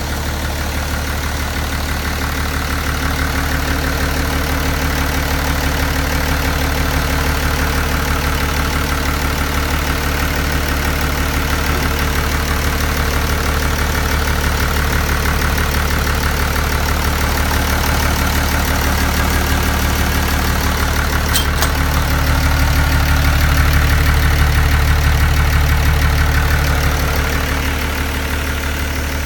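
1990 Kobelco excavator's diesel engine running steadily at idle. About two-thirds of the way through it rises a little in level for a few seconds, then settles back.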